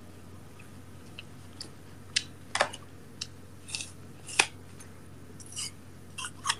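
Someone biting into and chewing crunchy food: about ten short, crisp crunches at irregular intervals, over a faint steady hum.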